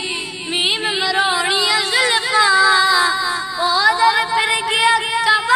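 A boy singing an Urdu naat, a devotional poem in praise of the Prophet, in a high voice with a wavering, ornamented melody.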